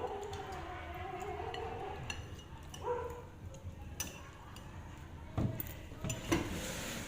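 Spoons, bowls and plates clinking during a meal, with a few sharp clinks in the second half. A voice is heard briefly at the start.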